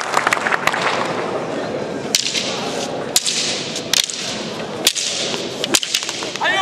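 Sharp cracks of wooden matrag fighting sticks striking, about six at irregular intervals, over a steady crowd murmur.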